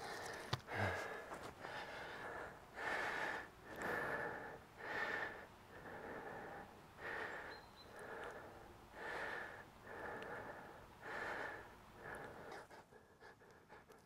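A man breathing hard and loudly, about one heavy breath a second, out of breath after the effort of working a bow drill to an ember.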